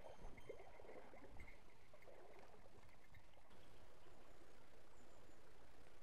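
Shallow river water running over a riffle as a faint steady rush, with small splashes of water in the first two seconds.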